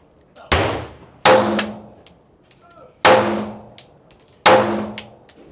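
Pistol fired four times at an irregular pace, each shot a sharp crack with a long echo trailing off, and light high pings between the shots.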